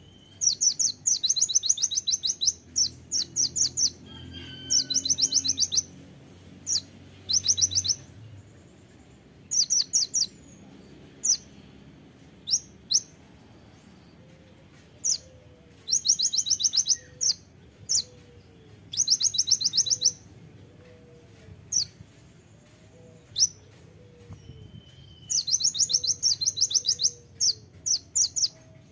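Male Van Hasselt's sunbird (kolibri ninja) singing. Its song comes in rapid, high trilled bursts of a second or two, separated by single sharp chips.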